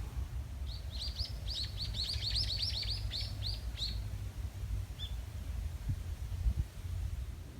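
A small bird singing a quick trill of about fifteen short, high, down-slurred notes lasting about three seconds, followed by a single short note. A steady low rumble runs underneath.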